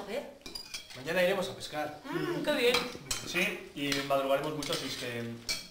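Cutlery and plates clinking during a meal, under conversation at the table.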